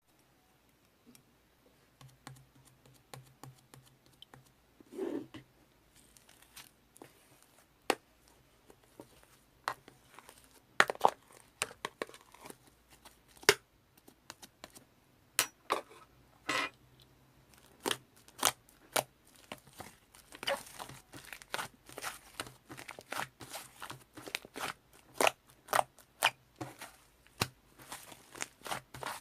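White fluffy slime being played with, giving sharp sticky pops and crackles. They come sparsely at first and grow denser and more frequent in the second half.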